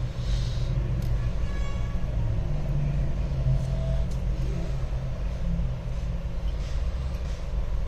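Steady low background rumble, with a few faint light clicks and taps of small hand tools being handled.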